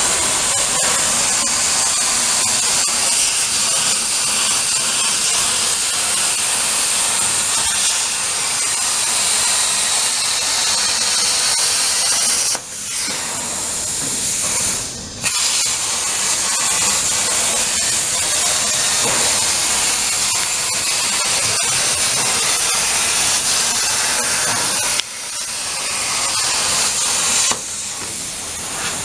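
Hypertherm plasma cutting torch on a CNC table cutting thin sheet metal: a loud, steady hiss of the arc and its air jet. The hiss drops away briefly around the middle and for a couple of seconds near the end, as the arc stops between cuts.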